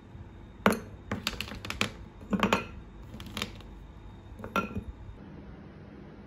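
Frozen Shine Muscat grapes being picked off a metal tray and dropped into a glass bowl: a run of hard clicks and clinks in small clusters, the first the loudest, stopping about five seconds in.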